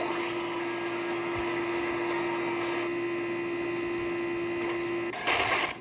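A steady mechanical whir with one constant humming tone, cutting off suddenly about five seconds in, followed by a brief loud rush of noise.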